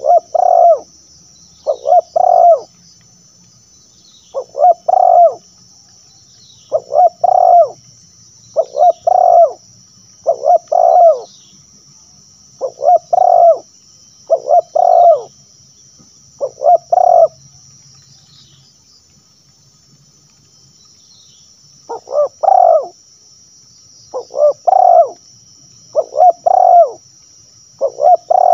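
Spotted dove cooing: short phrases of two or three coos, repeated about every two seconds, with a pause of a few seconds after the middle.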